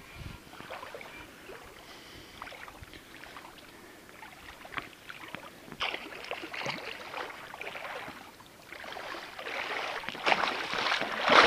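Water splashing and sloshing in bursts at the shallow edge as a pike on the line thrashes at the surface, growing louder near the end.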